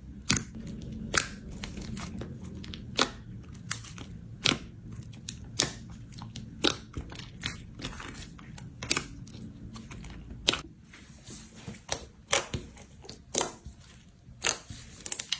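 Slime being pressed and squeezed, giving sharp crunchy pops and crackles about once a second.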